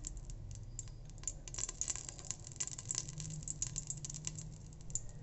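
Cooking oil heating in an aluminium pressure cooker, crackling with many small irregular pops that grow denser after about a second, over a steady low hum.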